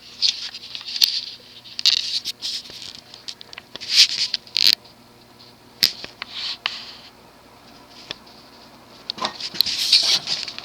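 Early-1980s TAT-built industrial ceiling fan motor humming steadily as it runs up to medium speed, with irregular scratchy crackling and clicking over the hum, quieter for a couple of seconds in the middle.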